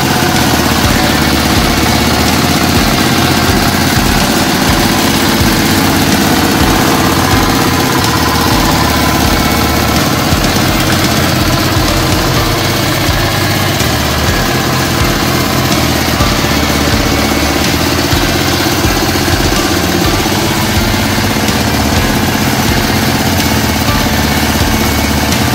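Walk-behind tractor's single-cylinder engine running steadily, with an even low-pitched pulse.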